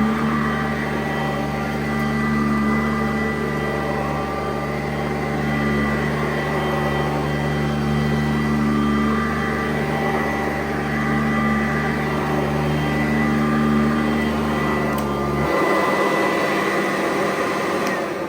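Sanitaire S677 upright vacuum cleaner running steadily with a motor hum and fan whine. It is switched off about three seconds before the end and starts winding down.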